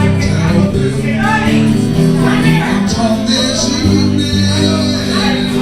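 Live acoustic band music: acoustic guitar playing held chords with a voice singing over it.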